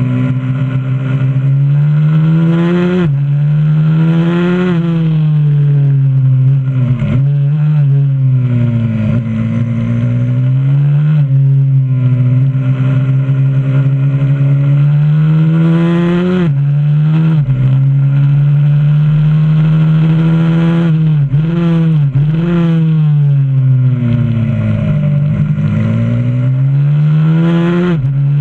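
125cc supermoto pit bike's single-cylinder engine, heard onboard, running hard around a track: its pitch climbs under throttle and falls as it slows for corners, with several brief sharp dips at gear changes or throttle lifts.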